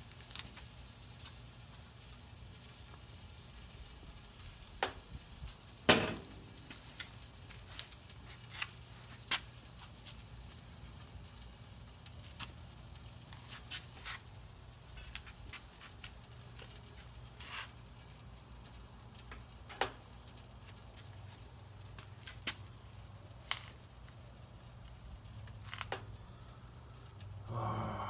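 Grease fire burning inside a powered-off Weber SmokeFire pellet grill, the bottom grease tray alight: a steady sizzle with sharp crackles and pops scattered throughout, the loudest about six seconds in.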